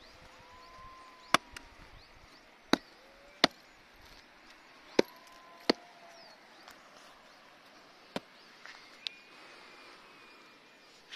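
Small hand pick chopping into a rotten wooden stump and turf: about seven sharp, irregularly spaced blows, the last two lighter.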